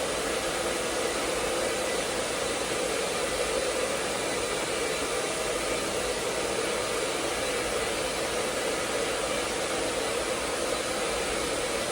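Hair dryer blowing steadily on one setting, a constant rush of fan and airflow with no change in speed.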